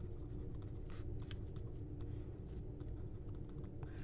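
Faint, scattered taps and light scratches of a stylus writing on a tablet, over a steady low electrical hum.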